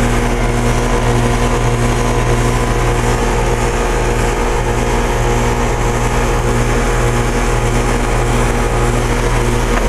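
2001 Trane XE1000 5-ton heat pump outdoor unit running steadily in heating mode just after a defrost cycle: the Climatuff reciprocating compressor's steady hum with the outdoor fan blowing.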